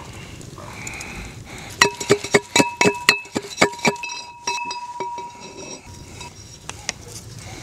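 A pestle pounding spices and herbs in a metal can used as a mortar: a fast run of knocks, about four or five a second, each making the can ring. The knocks start about two seconds in, and after about four seconds they thin to a few scattered taps.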